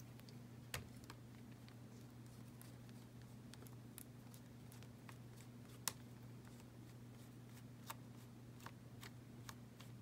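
Faint, scattered small clicks of a screwdriver working a small Phillips screw out of a spinning reel's handle knob, two of them sharper, one near the start and one about six seconds in. Under them runs a steady low hum.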